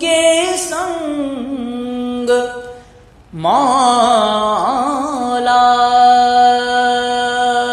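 Male voice singing a Sufi qawwali-style line, holding a long drawn-out vowel with ornamented, wavering turns. It breaks off briefly about three seconds in and returns as another long held note.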